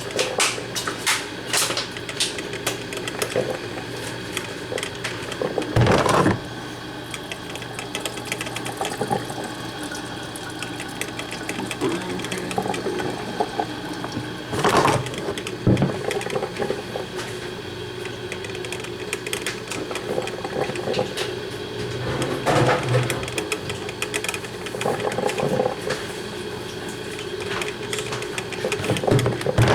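Black & Decker thermal carafe drip coffee maker brewing: a steady hum with gurgling and sputtering, and louder surges about every seven to nine seconds.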